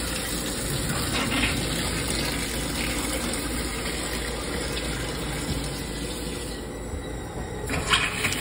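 Tap water running from a faucet into a stainless steel sink, over a steady low hum. Near the end the water falls away briefly, then a knock as another tap is turned and water runs again.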